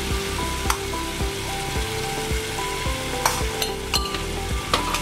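Coconut and jaggery modak filling sizzling gently in a non-stick kadhai on a low gas flame while a spatula stirs through it, with a few sharp scrapes or taps of the spatula on the pan.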